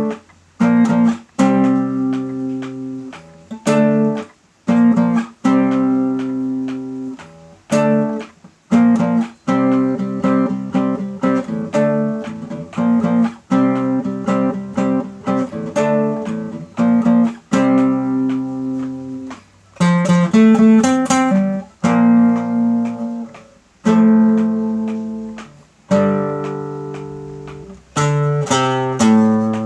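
Acoustic guitar played solo: plucked and strummed chords and single notes that ring and fade, in phrases with short breaks between them.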